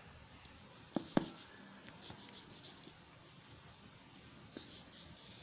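A red Doms colour pencil scratching faintly across paper as it is drawn with. Two light clicks come about a second in.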